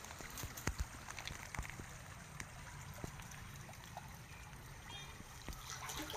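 Faint trickling and lapping of water, with a few soft knocks in the first second.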